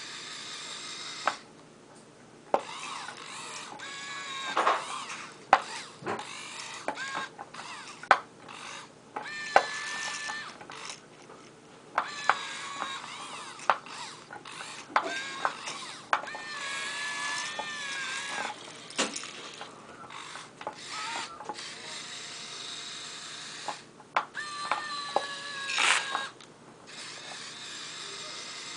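Kyosho Komatsu remote-control excavator's small electric motors and gearboxes whining in short runs as the boom, arm, bucket and swing are worked, each run starting and stopping within a second or two and the pitch wavering under load, with sharp clicks between runs.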